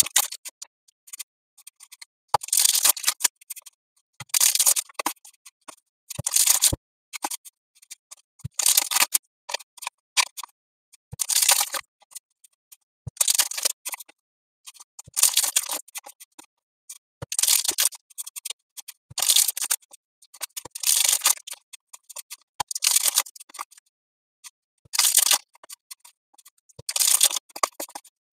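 Pokémon trading cards sliding against each other as they are moved one by one from the back of a hand-held stack to the front. Each move gives a short papery swish, about every two seconds, with quiet between.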